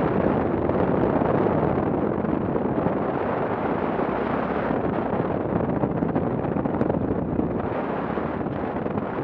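Yamaha adventure motorcycle riding steadily along a dirt track: engine running under way, mixed with a steady rush of wind on the bike-mounted microphone.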